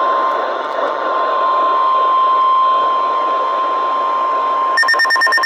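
Weather radio alert: a steady, loud single-pitched tone, the 1050 Hz warning alarm tone, over heavy radio static hiss. Near the end, a rapid electronic beeping, about eight pulses a second, starts over it.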